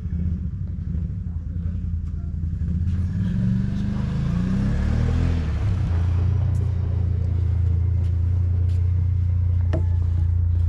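Low motor hum whose pitch drops a few seconds in, then holds steady.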